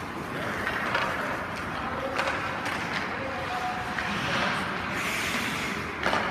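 Ice rink sounds: skate blades scraping and carving the ice in a steady swelling hiss, with a few sharp knocks of hockey gear on the ice.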